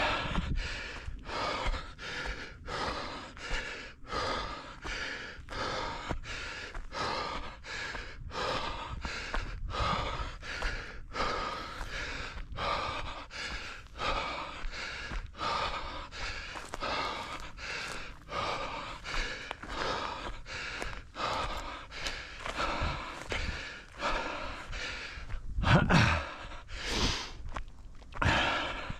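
A runner panting hard in a quick, even rhythm while running, with a louder bump near the end.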